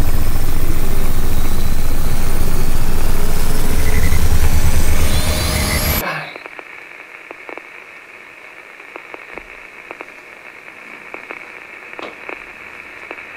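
Loud electronic drone sound effect with a deep hum and high whistling tones sweeping upward. It cuts off suddenly about six seconds in, leaving a quieter steady high ringing tone over crackling static.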